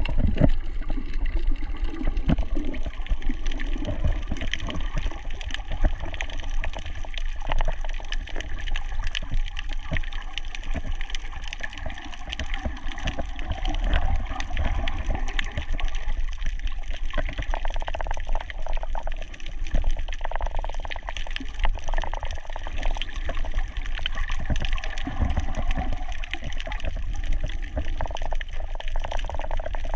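Water sloshing and gurgling around a camera held under the surface, over a heavy low rumble, with a dense, continuous crackle of small clicks.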